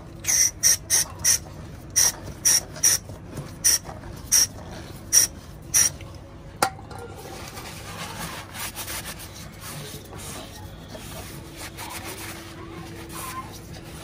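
Aerosol brake cleaner sprayed onto a motorcycle's rear brake disc in about eleven short squirts, then a single sharp click, then a cloth rubbing over the disc.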